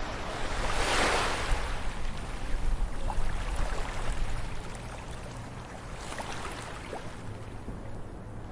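Water waves washing in with a hiss, in two swells: a strong one about a second in and a weaker one around six seconds, with small splashes and trickles between.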